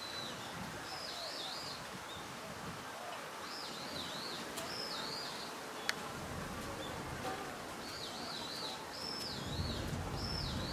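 A bird calling repeatedly: groups of short, wavering high chirps, over a steady outdoor background hiss. A single sharp click comes about six seconds in.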